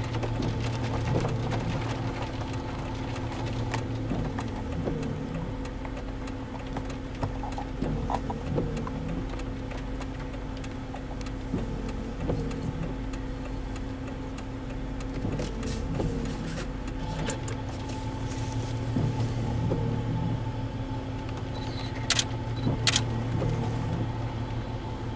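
Car engine idling with a steady hum, heard from inside the vehicle, with two sharp clicks near the end.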